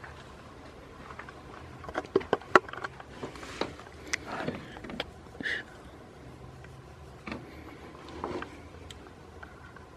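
Close handling sounds as a goat nuzzles and nibbles at a hand right by the microphone: a quick run of sharp clicks and knocks about two seconds in, then rustling and a few scattered knocks.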